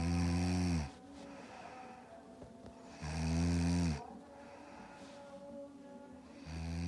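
A person snoring: three deep snores about three seconds apart, each about a second long and dropping in pitch as it ends, the last beginning near the end.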